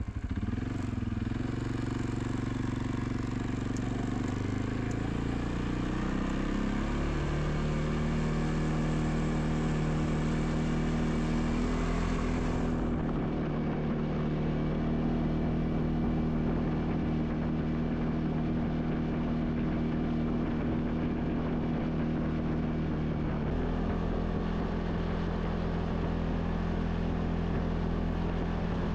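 ATV engine running, its pitch shifting over the first several seconds and then holding steady, with a slight change in pitch later on.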